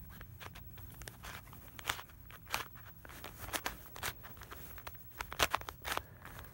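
Plastic 3x3 barrel (cylinder) twisty puzzle being turned by hand, its layers giving a string of irregular sharp clicks and clacks as they are twisted into a checkerboard pattern.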